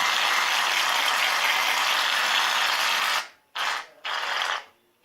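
Slime mixture being stirred hard and fast in a container, a continuous rapid rattling scrape that stops about three seconds in, followed by two short bursts of stirring.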